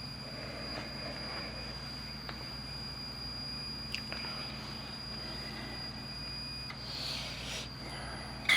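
Pioneer CT-W840R cassette deck transport running with a steady high-pitched squeal, which the owner suspects comes from a slipping drive belt. There is a sharp click about four seconds in, and the squeal stops near the end, followed by a brief rush of noise.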